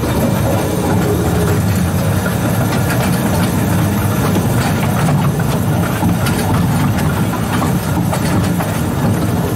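Steady low drone from a small 2-foot-gauge locomotive running slowly, heard from its cab, with scattered clicks as the wheels cross rail joints and switches.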